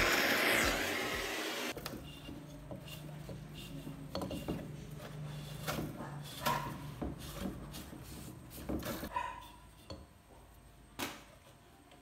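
Brazing torch flame hissing on a compressor's copper tube, cutting off sharply just under two seconds in. Then cloth rubbing inside a metal fridge cabinet, with scattered light knocks and clunks and a couple of short squeaks as it is handled.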